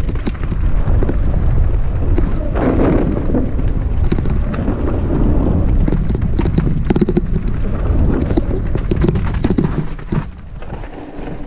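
Wind buffeting the microphone of a camera moving along a rocky dirt singletrack, over a continuous clatter and crunch of loose stones and gravel underneath. The rumble and clatter ease about ten seconds in.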